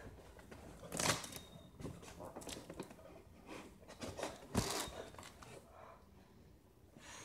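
Packaging being handled and rustled while a monitor is unpacked from its cardboard box: a string of short scrapes and crinkles, loudest about a second in and again between four and five seconds.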